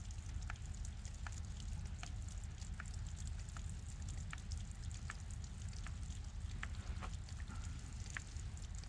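Water dripping from icicles on a frozen rock seep: single drops plink about once or twice a second at an uneven pace, over a low steady rumble.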